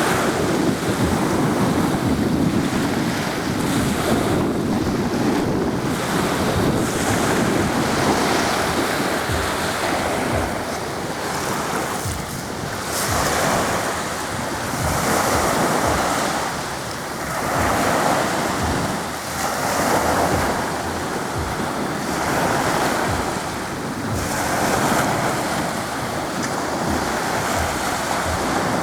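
Sea waves washing onto the shore, surging and ebbing every two to three seconds, with wind buffeting the microphone.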